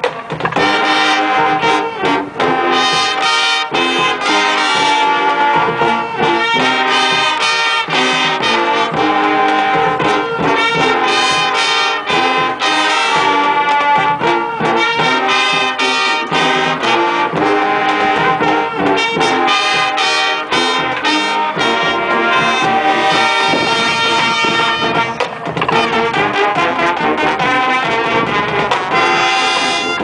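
High school marching band playing a funk medley arrangement: a loud full brass section of trumpets, trombones and sousaphones with drum hits.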